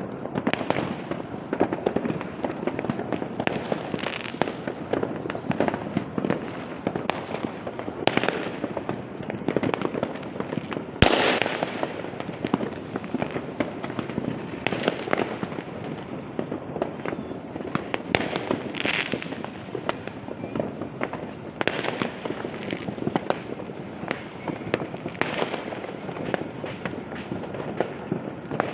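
New Year's Eve fireworks and firecrackers going off all around, a dense, continuous crackle of many overlapping bangs. One bang about eleven seconds in is louder than the rest.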